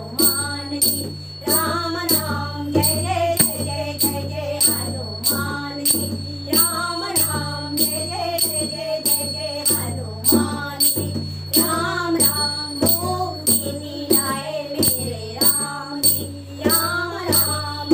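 Women singing a Hindi devotional bhajan, accompanied by a dholak drum and small brass manjira cymbals struck in a steady rhythm.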